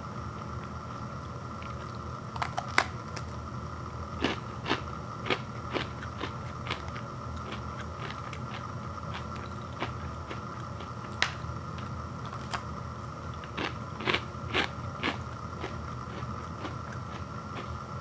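Someone biting and chewing a crunchy nut bar made of roasted peanuts and sunflower seeds, giving sharp separate crunches in two runs, a few seconds in and again near the end, with single crunches between.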